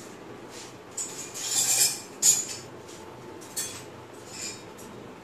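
Kitchen utensils handled at a stone counter: a short scrape about a second and a half in, then a sharp metal clink just after two seconds and a couple of lighter taps.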